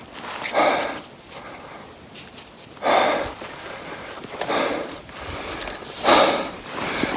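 A man breathing hard from the exertion of hiking, with four loud breaths about a second and a half apart.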